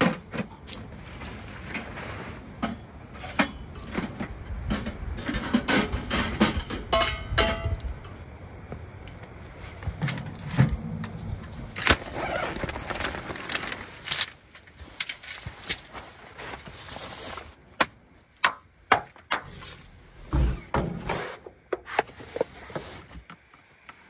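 Camping gear being unpacked and put together: fabric carry bags rustling, with irregular knocks, clinks and sharp clacks of metal poles and legs as an ultralight folding cot is assembled, the clacks coming more often in the second half.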